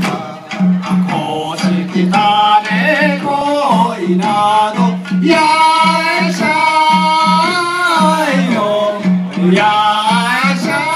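Bon odori dance song: a singer's long, wavering melody over a steady, evenly repeating drum beat.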